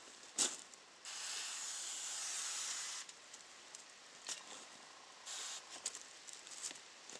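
Water sprayed from a squirter nozzle onto kiln bricks: a steady hiss for about two seconds, then a shorter burst. The bricks are being moistened so they don't suck the water out of the clay mortar. A few sharp knocks sound between the sprays, the loudest about half a second in.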